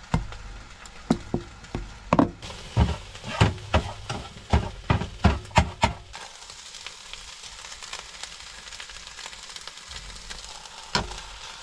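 Food frying and sizzling steadily, with a quick run of sharp knocks, about two or three a second, over the first half, and one more knock near the end.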